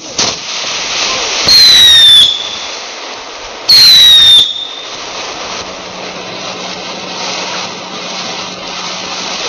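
Dinosaur ground-fountain firework spraying sparks with a steady hiss that starts suddenly as it ignites. Twice it lets out a loud, shrill whistle lasting under a second, falling slightly in pitch.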